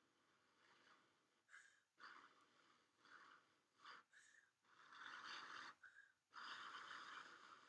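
A person's soft breathing close to the microphone: a few audible breaths, the two strongest about a second each in the second half.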